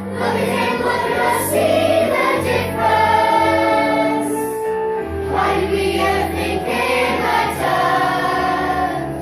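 Stage-musical ensemble singing together in chorus over an instrumental backing, with held notes and a steady bass line.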